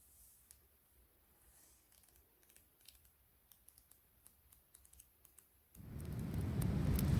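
Faint, sparse crackling of a campfire. About six seconds in, a loud rushing noise with a deep rumble cuts in suddenly and grows louder.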